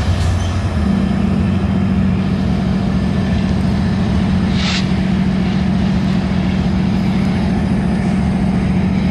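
Union Pacific diesel-electric locomotives running as they pull a freight train past: a steady low engine drone whose note steps up about a second in and then holds. There is a brief hiss near the middle.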